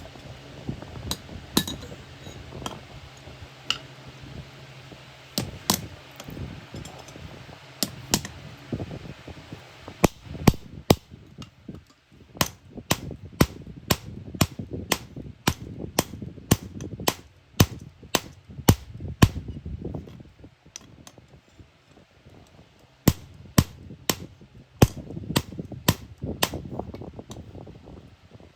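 Hammer striking iron in a run of sharp, ringing metal blows, irregular at first, then coming about two a second, with a pause of a few seconds before a last cluster of strikes.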